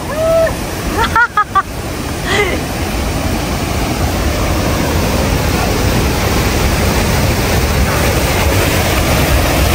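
Steady rush of a waterfall's falling water, growing gradually louder, with a few brief voice sounds in the first couple of seconds.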